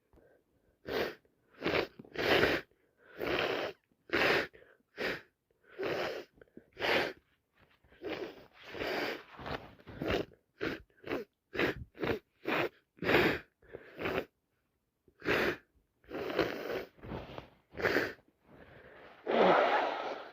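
A woman sneezing again and again in a long fit, short bursts coming about once or twice a second with quick breaths between, and a longer, louder one near the end. The fit comes from a cold on top of allergies.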